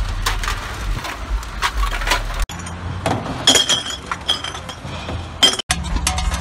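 Empty aluminium cans clinking and clattering as they are dropped and tossed into mesh recycling bins, a run of short sharp metallic knocks, several with a brief high ring, over a steady low hum.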